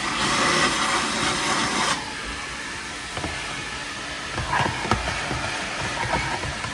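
Car-wash vacuum hose blowing a loud, steady rush of air that cuts off suddenly about two seconds in, followed by a low rumble and a few light knocks.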